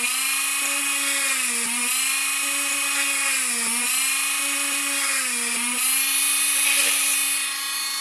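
Corded Minicraft mini drill with a tungsten carbide bit drilling holes in a printed circuit board, its motor running with a steady high whine. The pitch dips briefly about every two seconds as the bit loads in each hole.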